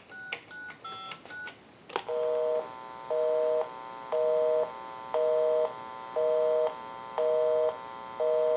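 Last few digits dialed on a touch-tone keypad, each a short two-note beep, then a click about two seconds in and a telephone busy signal: a two-note beep repeating about once a second, half a second on and half off, the sign that the number dialed is busy.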